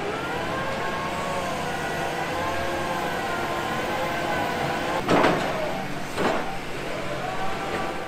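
Bauer BG 20 H rotary pile-boring rig running steadily: diesel engine and hydraulics with a wavering whine. Two short bursts of rushing noise come about five and six seconds in.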